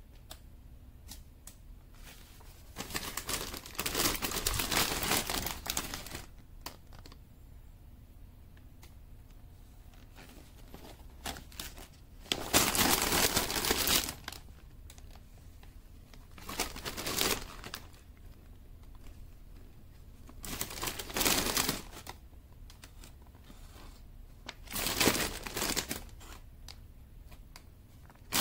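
Paper pages of a building-instruction booklet being handled and turned, rustling in five separate bursts of one to three seconds with quiet between.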